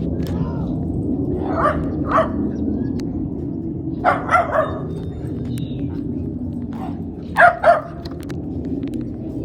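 A dog barking in short runs: two barks, then three, then two, over a steady low background rumble.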